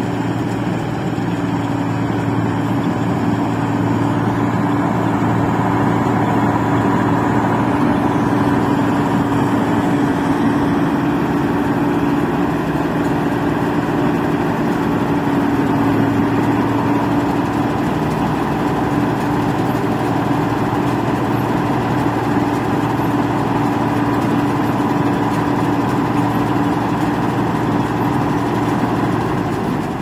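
New Holland 8070 rice combine harvester running steadily while harvesting in the field: a loud, even engine and machinery drone with a constant hum.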